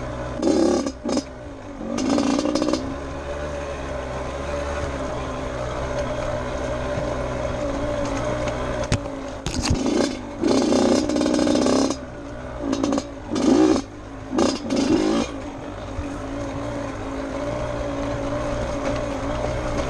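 Dirt bike engine running along a trail, its revs rising and falling as the throttle is worked, with several short bursts of throttle, the loudest between about ten and fifteen seconds in.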